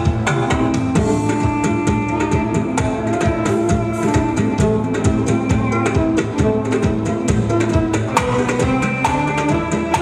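Armenian dhol played with bare hands in a fast, dense stream of strokes, over a sustained melodic accompaniment.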